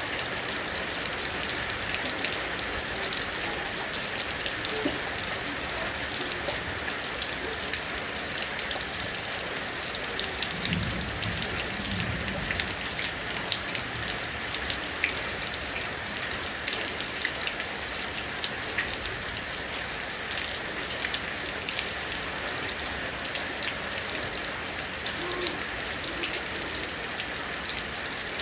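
Heavy rain falling steadily, with many sharp individual drop hits. A brief low rumble comes about eleven seconds in.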